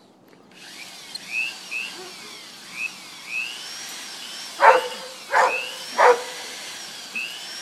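A small motor, most likely the lure machine pulling the plastic rabbit, starts up and runs with a steady whir and short high squeaks. Over it a dog barks three times in excitement, about two-thirds of a second apart.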